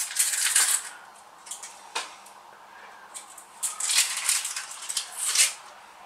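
Dry, papery crackling and rustling in two spells, as onion skin is handled and pulled off, with a single sharp click about two seconds in.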